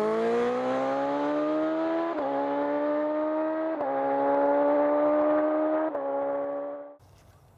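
Suzuki GSX-R1000 inline-four engine accelerating under load, its note rising, with three clutchless upshifts about two seconds apart. Each shift is a brief dip in the engine note as the quickshifter cuts the ignition. The sound cuts off about seven seconds in.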